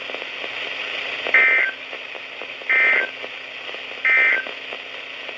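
EAS/SAME end-of-message code on NOAA Weather Radio: three short bursts of data tones, about 1.4 seconds apart, over steady radio hiss. It marks the end of the alert message.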